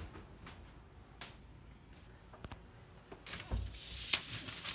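Handling noise of someone moving about: a few faint clicks and knocks, then a rustling shuffle over the last second and a half with a sharp click about four seconds in.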